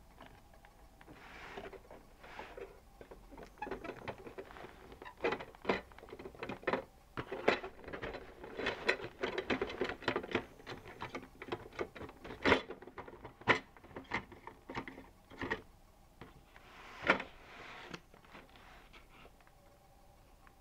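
Hands handling a boxed plastic toy recycling truck: irregular clicks, taps and rustles of cardboard and plastic, busiest in the middle.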